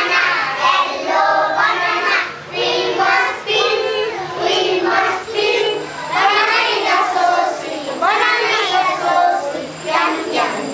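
A class of young children singing a song together in chorus.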